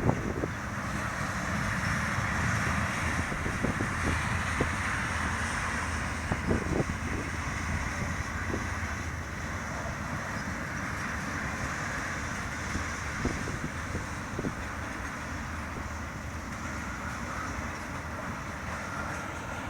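Train rolling past: a steady rumble and hiss of steel wheels on rail, with scattered clicks and a faint steady squeal near the end.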